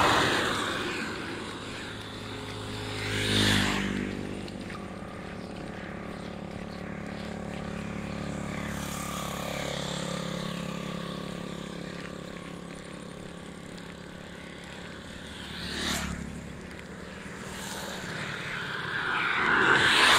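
Motor vehicles passing one after another, each swelling up and fading, with a steady engine hum underneath.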